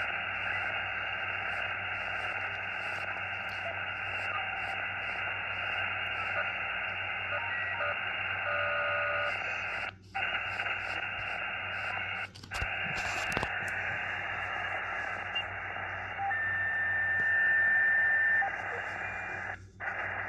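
Xiegu X6100 transceiver's receiver hiss in USB mode from its speaker, tuned across the 6-metre band with no antenna, dropping out briefly three times. Twice, steady whistling tones come through: the radio's own internally generated birdies. The louder, later one holds for about two seconds.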